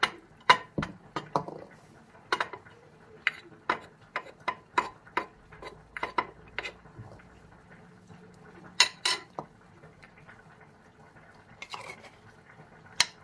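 A spoon clinking and scraping against a bowl as pounded garlic is added and stirred into yogurt. The clinks come irregularly, with a sharp pair of louder ones about two-thirds of the way through.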